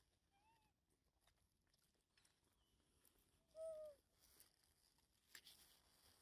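Infant rhesus macaque giving two short, high cries: a faint rising-and-falling one about half a second in and a louder, slightly falling one about three and a half seconds in. A single soft click comes near the end.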